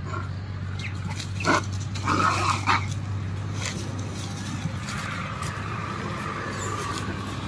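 A few short, sharp animal calls, the loudest a little over a second in and again around two seconds in, then a fainter drawn-out call, over a steady low hum.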